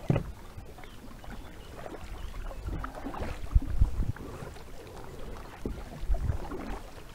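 Kayak paddles dipping and splashing in flat water as two people paddle a tandem kayak, with a few low thumps mixed in.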